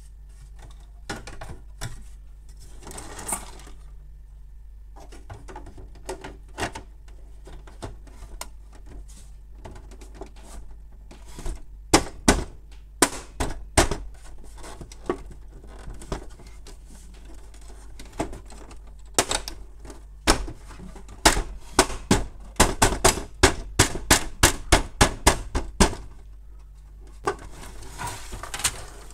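Plastic side cover of a Canon MF216n printer being pressed back onto its frame: sharp plastic clicks and knocks as its tabs seat, a few at a time at first, then a fast run of them for several seconds late on, with brief scraping as the panel slides against the body.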